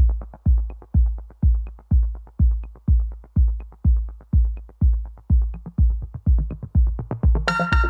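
Electronic outro music: a steady kick-drum beat, about two a second, with light ticks above it, and a bright synth chord coming in near the end.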